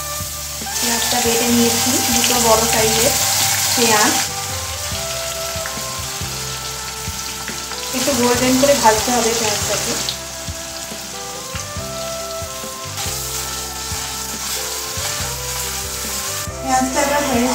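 Chopped onion tipped into hot oil in a steel kadai sizzles loudly, in two swells: one about a second in lasting some three seconds, and a shorter one about eight seconds in, with a lower steady frying sizzle between them. Near the end a spatula stirs and scrapes in the pan.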